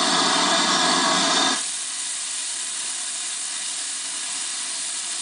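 Steam locomotive hissing steam in a steady, loud rush that drops abruptly about a second and a half in to a quieter, continuing hiss.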